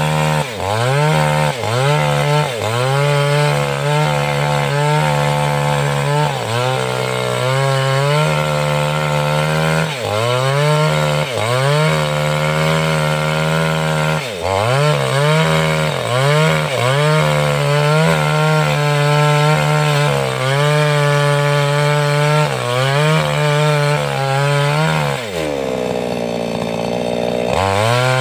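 588X two-stroke chainsaw cutting wood at high revs, its engine pitch dipping and recovering every second or two as the chain bites. Near the end it drops to a low speed for about two seconds, then revs back up.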